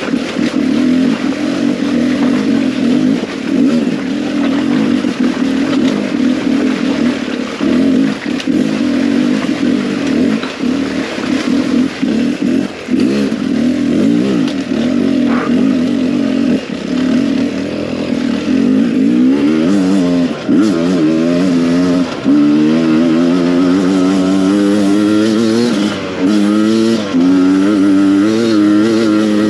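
Beta 300 RR two-stroke enduro motorcycle engine running hard at fairly even revs, then revving up and down over and over in quick succession through the last third.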